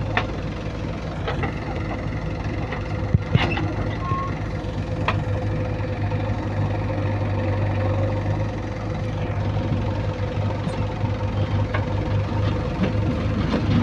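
Heavy diesel engine running steadily at low speed, with a few short sharp knocks about three to five seconds in.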